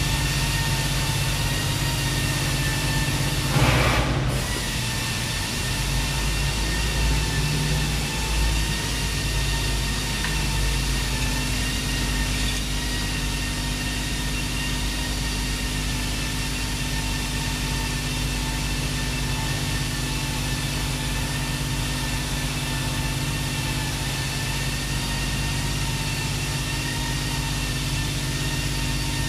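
Steady hum of running machinery, a constant drone with several steady tones, broken about four seconds in by a short, loud burst of noise.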